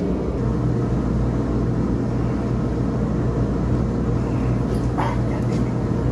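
A steady low hum with a single sharp click about five seconds in.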